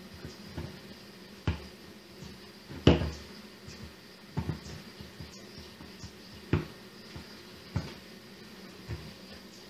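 Irregular knocks of a baking mold bumping on a wooden table as hands press dough into it and work its edge, about six knocks, the loudest about three seconds in.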